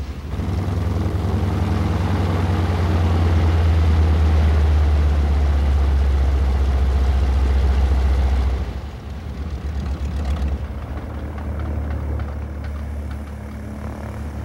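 North American T-6 Texan's nine-cylinder Pratt & Whitney R-1340 radial engine running on the ground with a deep, steady drone. About eight and a half seconds in it drops sharply to a quieter idle as the plane taxis.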